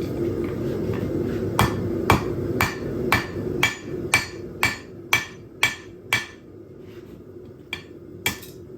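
Hand hammer striking steel on an anvil with a metallic ring, about two blows a second, ten in a row, then two more after a short pause: forging cut-off pieces of Damascus twist bar flat. A steady rushing noise runs underneath and drops away after the run of blows.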